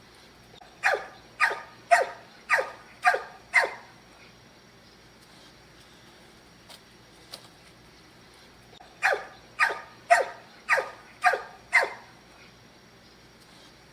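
Pit bull barking in two volleys of about six sharp barks each, roughly two a second, the first about a second in and the second about nine seconds in, with a quiet stretch between.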